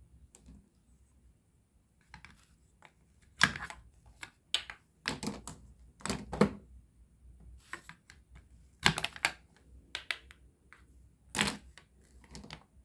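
Toy play-food pieces clacking and knocking against each other and a plastic basket as they are picked up and moved. An irregular string of sharp clicks, with several louder knocks a second or two apart.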